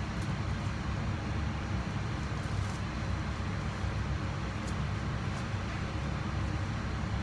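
Steady low rumble of a commercial kitchen's ventilation, with a few faint crinkles from plastic wrap being handled around a sushi roll.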